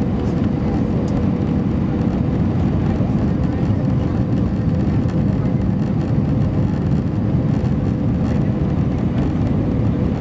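Steady cabin noise of an Airbus A320 with IAE V2500 engines on approach with flaps extended: a loud, even rumble of airflow and engines, with a faint steady hum tone running through it.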